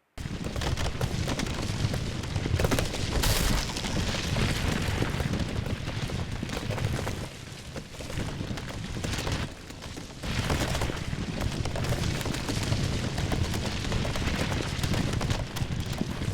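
Falling-rock sound effects for a cave collapse, played solo: a dense, continuous rumble of rocks tumbling and crashing that starts abruptly and eases briefly twice past the middle.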